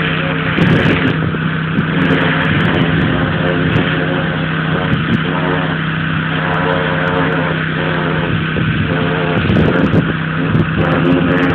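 Pressure washer running steadily: the engine's even hum under the continuous hiss of the water jet spraying the deck boards.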